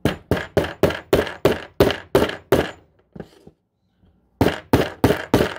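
Hammer striking the steel rod of a Lee Loader die set in quick blows, about nine in a row, a pause of about two seconds, then four more. It is driving a stubborn .45 Colt case out of the sizing die, a case stuck from being fired with too hot a load.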